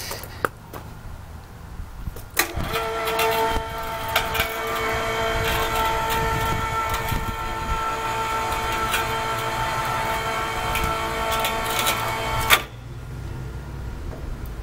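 Scaffold crane's electric hoist running as it lifts a pallet of bricks in a pallet lifter: a steady motor and gear whine that starts with a click about two seconds in and cuts off with a sharp clunk near the end.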